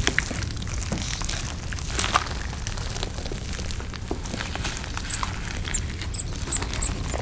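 Close-miked eating sounds: chewing with small wet mouth clicks scattered through, and a quick run of short high clicks near the end, over a steady low hum.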